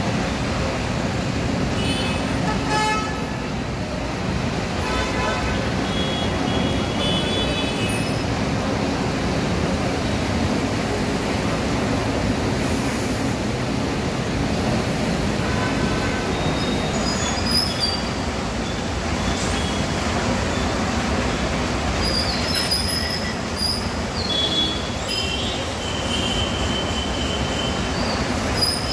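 Congested road traffic running steadily, with vehicle horns honking several times over it.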